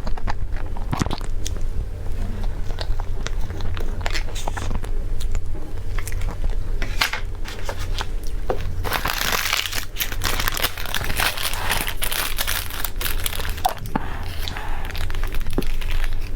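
Crunchy bites and crinkling of food packaging being handled, with a dense stretch of crinkling about nine to thirteen seconds in, over a steady low hum.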